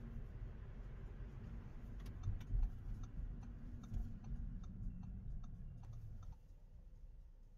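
Low road rumble inside a slow-moving car, with a car turn-signal indicator ticking steadily at about three clicks a second from about two seconds in. Both drop away suddenly near the end.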